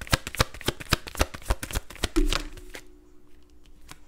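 A tarot deck being shuffled by hand: rapid card-on-card slaps, about five a second, that stop with a soft thump about two seconds in.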